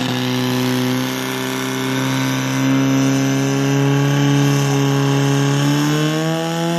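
Portable fire pump's engine running hard at high revs, a steady note whose pitch rises about six seconds in as it pumps water through the hose lines to the nozzles.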